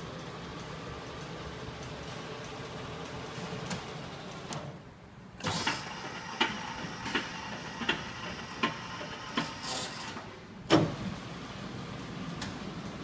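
Leblond Makino Servo Shift engine lathe running under power with a steady hum that drops away about four seconds in. Then come regular sharp clicks about every three quarters of a second over a faint hiss, and a loud clunk near the end, after which the steady hum returns.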